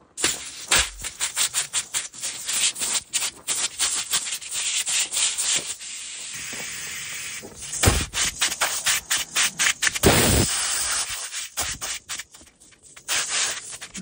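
Tire plug reamer rasped rapidly in and out of a puncture in a tractor tire, a dense run of scraping strokes against the rubber and steel cords as the hole is cleaned out for a plug. About six seconds in the strokes pause for a steady hiss of air escaping through the reamed hole.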